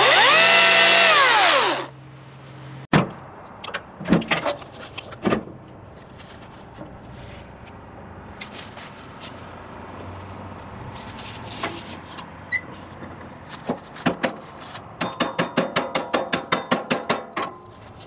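Greenworks electric chainsaw running briefly, its motor whine rising and falling back over about two seconds. Scattered knocks and clatter follow, with a quick run of taps near the end.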